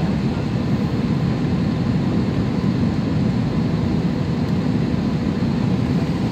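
Steady cabin noise of a passenger airliner in flight: an even, low rush of engine and airflow noise with faint steady hums above it.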